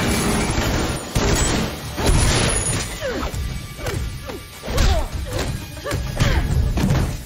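Film fight-scene sound effects: a hissing, crackling burst of sparks and smoke at the start, then a run of hard hits, thuds and crashes from a hand-to-hand brawl.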